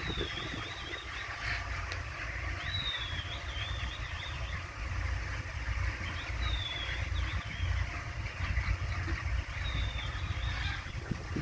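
Poultry calling: a high, wavering call comes four times over a dense chatter of birds, all above a steady low rumble.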